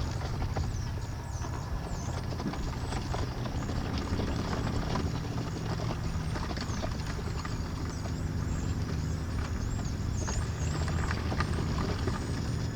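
A steady low rumble with small birds chirping high over it again and again, and scattered light clicks.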